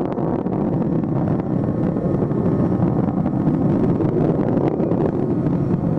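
Steady, deep rushing roar of the space shuttle Atlantis climbing on its two solid rocket boosters and three main engines during ascent.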